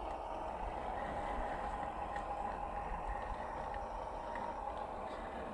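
1/10-scale RC crawler's brushed electric motor and gearbox whining steadily as the truck creeps over rough ground.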